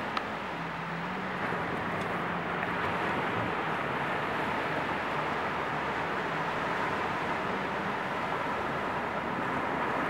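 Ocean surf breaking and washing up onto a sandy beach: a steady rushing wash of waves, growing slightly louder near the end.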